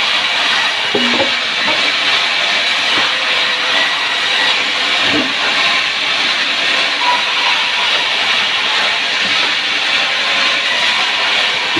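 A wood saw running, a loud, steady, even noise without pauses.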